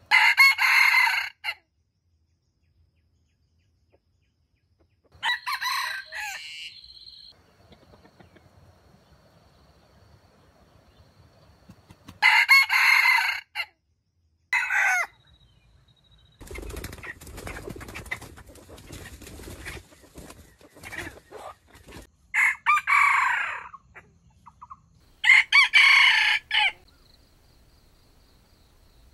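Red junglefowl rooster crowing repeatedly, about six short crows spaced several seconds apart. A stretch of quieter rustling in the leaf litter comes around the middle.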